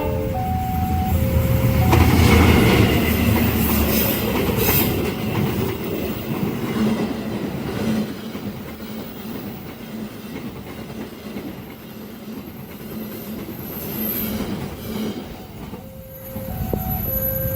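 A train passing close by: heavy rumble and wheel-on-rail noise with repeated clatter, loudest in the first half and then easing off. A two-tone warning chime alternates at the start and again near the end, typical of an Indonesian level-crossing alarm.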